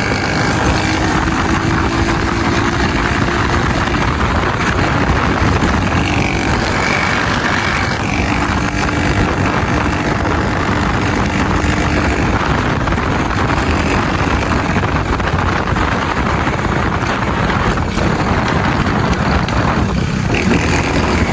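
Honda Pop 110i's small single-cylinder engine running steadily while the motorcycle is ridden, under a dense, even rushing noise with no pauses.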